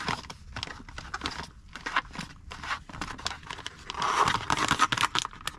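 Mountain House freeze-dried meal pouch crinkling as a spoon stirs the rehydrating food inside, a string of short crackles and scrapes. About four seconds in, a denser, louder crinkling as the pouch is folded and pinched shut at the top.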